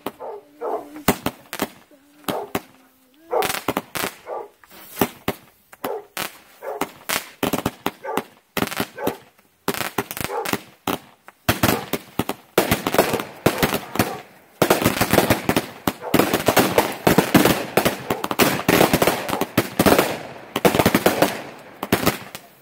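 Small consumer fireworks going off: scattered sharp pops at first, building about halfway in to a dense, rapid crackle of reports that thins out near the end.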